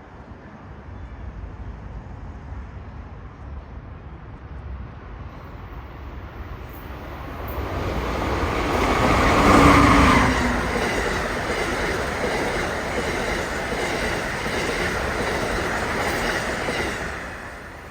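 A passenger train passing through at speed. It grows louder to its loudest about ten seconds in, then keeps up a steady rush and rhythmic clatter of wheels on the rails for several seconds before dropping away near the end.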